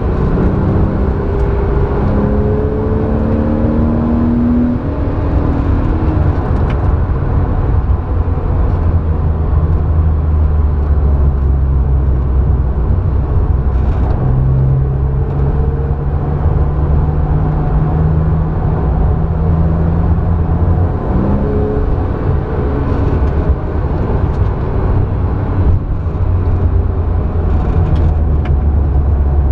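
Porsche 911 flat-six engine heard from inside the cabin while it is driven hard on track. Its note climbs in steps in the first few seconds, pulls long and slowly rising in the middle, and jumps up quickly a little after twenty seconds.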